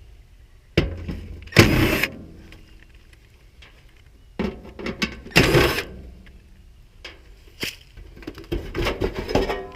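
Sheet-metal service panel of an outdoor air-conditioning condenser being worked off: a few separate bursts of metal scraping and clanking, the loudest about two seconds in and again about five and a half seconds in.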